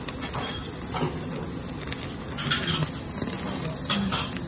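Pieces of beef and pork sizzling on a slotted yakiniku grill plate over flames, with a few sharper crackles about two and a half and four seconds in.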